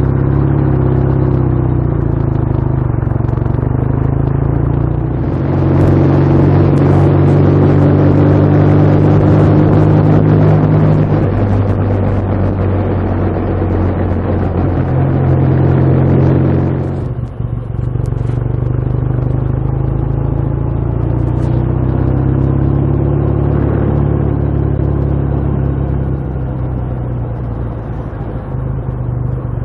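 Motorcycle engine running steadily under way, with wind rushing over the microphone. It gets louder and windier about five seconds in, then drops back abruptly around seventeen seconds.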